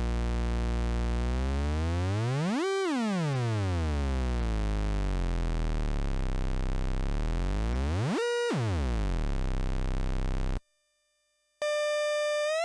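Small homemade two-oscillator drone/noise synthesizer playing a low buzzing drone that glides up in pitch and back down twice, then cuts off about ten seconds in. After a second of silence a higher, steady buzzing tone starts near the end.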